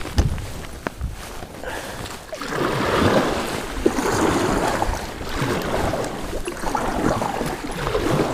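Kayak paddle strokes splashing and churning through choppy lake water, with wind buffeting the microphone in gusts.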